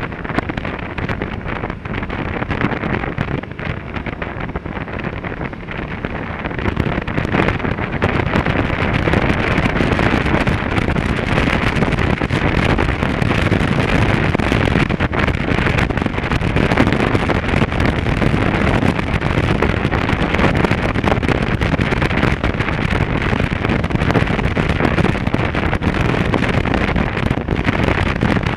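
Wind rushing over the microphone of a camera on a moving motorcycle, over the motorcycle's engine and road noise. It grows louder about seven seconds in.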